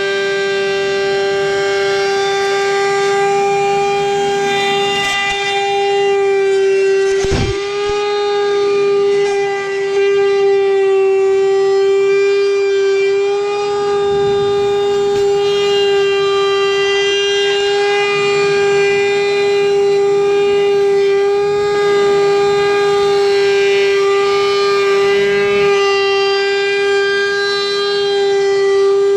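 Handheld wood router running at a steady high whine, its flush-trim pattern bit trimming the edge of glued-up plywood back to a template. A single sharp knock comes about seven seconds in.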